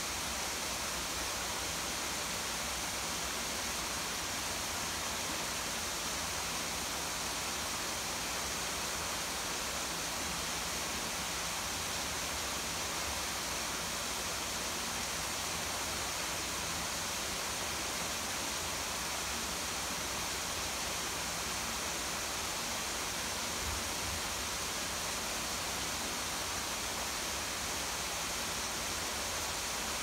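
Steady, unchanging rush of falling water: rain coming down on a garden together with a small cascading garden waterfall.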